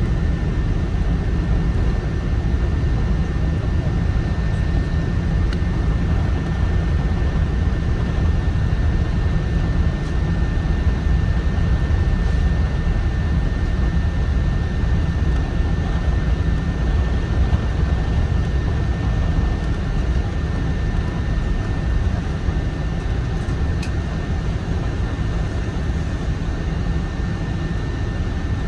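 Cabin noise of a Boeing 777-300 rolling along the runway after landing: a steady low rumble of the jet engines and the wheels on the concrete, with a faint steady whine above it. The rumble eases slightly near the end as the airliner slows.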